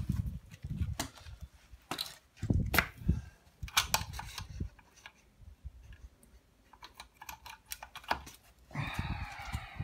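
Clicks and knocks of a Kärcher K7 pressure washer's mains plug being pulled out of a wall socket and pushed back in, power-cycling the machine to reset its lost connection with the handle. A short wavering pitched sound comes near the end.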